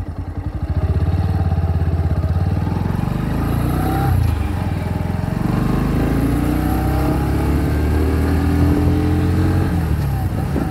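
Bajaj Pulsar NS125's single-cylinder engine at full throttle on a top-speed run, its pitch climbing as the bike accelerates up through the gears.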